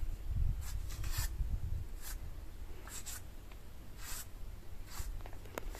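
A bristle brush drawn down through a horse's long tail hair: a series of short dry swishes, about one a second.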